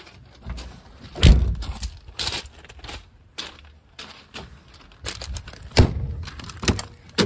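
Ambulance body compartment doors being handled: one loud door slam about a second in, then a series of sharp latch clicks and knocks, with another hard clunk near the end.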